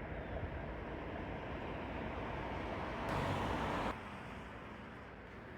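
Steady hum of road traffic and outdoor town noise, swelling into a louder hiss about three seconds in and then dropping off suddenly a second later.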